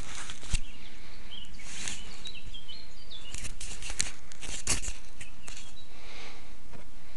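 Handling noise from fingers on a small handheld camera: clicks and rustles over a steady hiss and rumble, with a few faint, high bird chirps between about one and a half and three seconds in.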